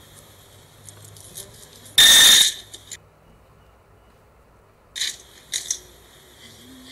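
Paper banknotes and coins being handled and counted on a table: scattered light clicks and taps, with one loud, short noisy burst about two seconds in and a few sharper taps around five seconds in.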